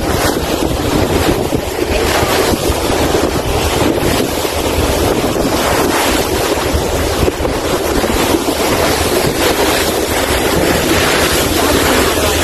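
Steady wind buffeting the microphone over the rush of water and the low engine hum of a boat under way.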